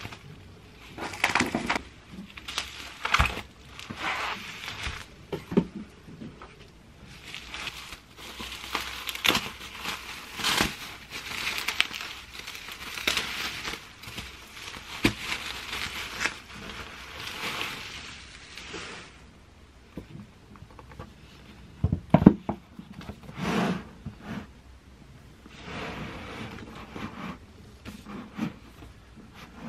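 Bubble wrap crinkling, crackling and rustling as it is pulled off a stack of books by hand. After a short lull come a few sharp knocks, the loudest sounds, as the books are set down on the table, then softer handling.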